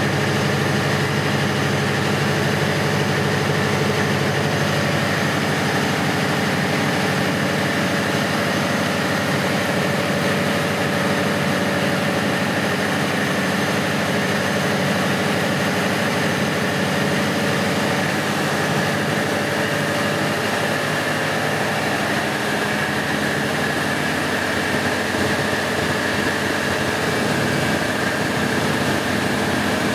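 Large Caterpillar diesel generator engine running steadily.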